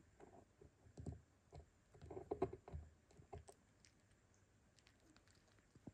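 Faint rustling, small clicks and soft knocks from two miniature dachshund puppies moving about on a fleece blanket, with a busier cluster about two seconds in.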